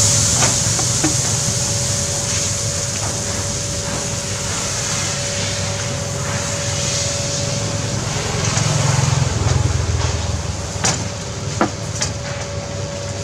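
Crepe batter sizzling lightly on a hot griddle over a steady low rumble and a faint steady whine, with a few sharp clicks near the end as the spreader knocks on the plate.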